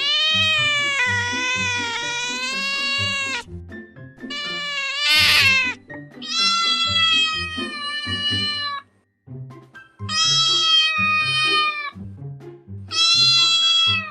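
Kitten meowing in five long, drawn-out calls, each lasting one to three seconds, over background music with a low, steadily repeating bass pattern.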